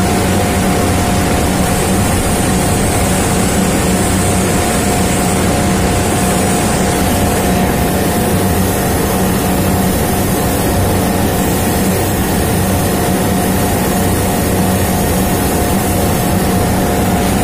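Steady drone of running machinery, with a low motor hum and a steady mid-pitched tone over it.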